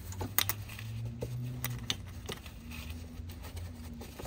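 Blue paper shop towel rustling and rubbing as oil residue is wiped from a generator housing, with several sharp clicks and scrapes from hands and towel against the parts. A steady low hum sits underneath.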